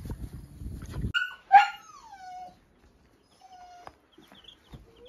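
A puppy whining: a pitched cry that falls in pitch about a second and a half in, and a shorter, fainter one a couple of seconds later. Low rumbling noise fills the first second.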